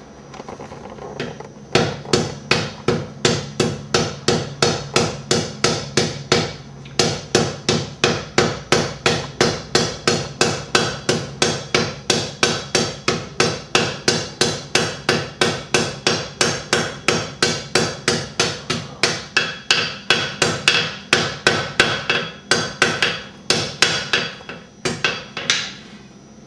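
Blacksmith's hand hammer striking red-hot iron on an anvil, about three blows a second with the anvil ringing under them. The blows start about two seconds in and break off briefly about a quarter of the way through. This is the necking-in of a needle bodkin arrowhead's socket, closing the gap where the rolled iron meets.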